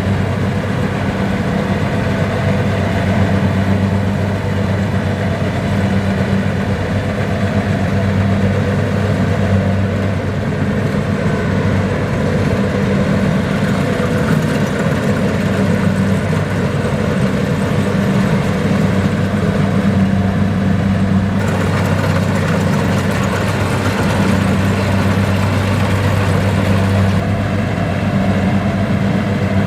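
Kubota combine harvester's diesel engine running steadily with the clatter of the cutting and threshing machinery, a strong low hum beneath.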